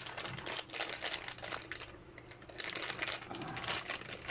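Handling noise from unpacking a new torque wrench: crinkling and scattered light clicks as the wrench and its packaging are moved about, with a brief lull about two seconds in.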